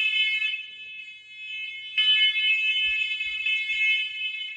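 Hardwired smoke alarm sounding its high-pitched alarm tone during a push-button test. The tone drops back about a second in, comes back loud about two seconds in, and fades near the end.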